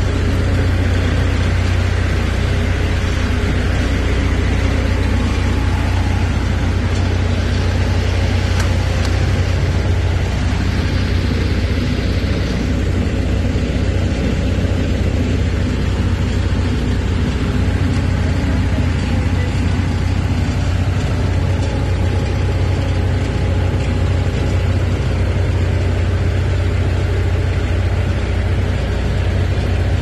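Bobcat 753 skid steer's engine idling steadily.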